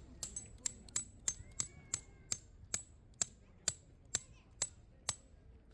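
A rapid series of sharp, light taps, about two to three a second, with a bright metallic edge; they stop about five seconds in.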